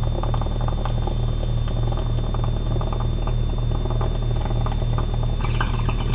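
Water bubbling in a glass bong as it is drawn on: a dense, irregular patter of small bubbles, busier near the end. Under it runs a steady electrical hum with a faint high whine.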